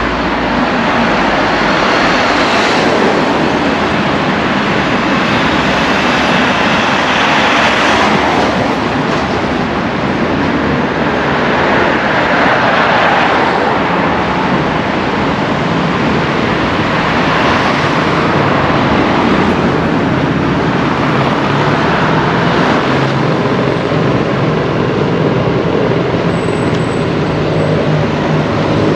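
Road traffic: a steady rush of passing vehicles, swelling every few seconds as each one goes by.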